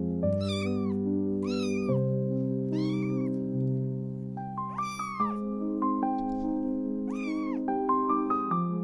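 A newborn kitten, about five days old with eyes still closed, meowing five times in high-pitched cries that each rise and then fall; the fourth cry, about five seconds in, is the loudest.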